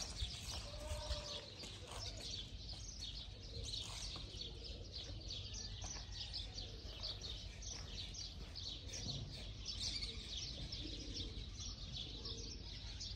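Faint, rapid, continuous chirping of small birds, many short notes overlapping, over a steady low rumble of ambient noise.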